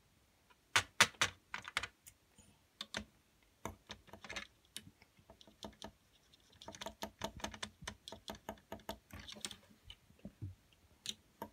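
Hard plastic Lego pieces and minifigures clicking and tapping against each other as they are handled. The clicks come irregularly: a few sharp ones about a second in, then a denser run of quick light clicks over the second half.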